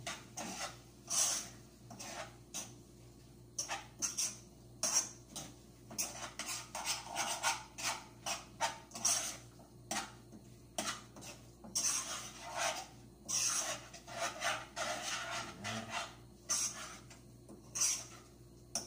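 A spoon stirring a pot of cooking saluyot (jute mallow) leaves, scraping against the pot in quick, irregular strokes.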